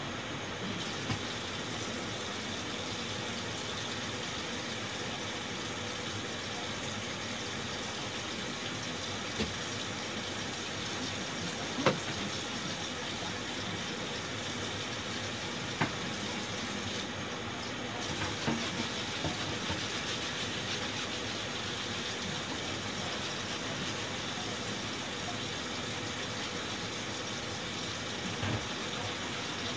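Kitchen tap running steadily into the sink, with a few short clinks and knocks of kitchenware now and then.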